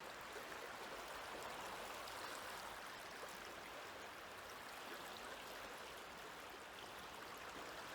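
Faint steady rushing noise with no ringing tones.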